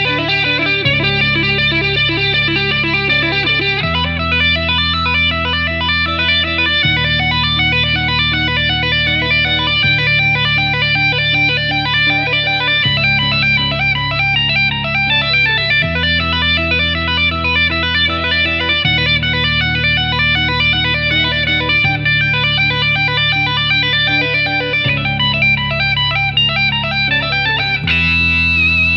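Drumless guitar instrumental in a minor Dorian mode: effects-treated electric guitar plays quick, repeating notes over held low notes that change about every three seconds.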